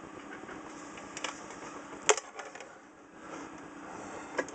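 A few sharp clicks and light knocks, the loudest about two seconds in and a pair near the end, over a faint steady hum.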